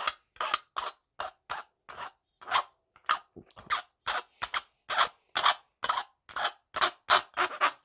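Hand file working the edges of a small hand-held piece of aluminum, in quick short strokes about three a second, knocking down sharp corners and deburring.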